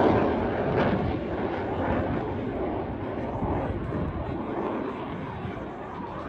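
Engine noise of a display aircraft in flight, a broad steady rumble that slowly fades as the aircraft moves away.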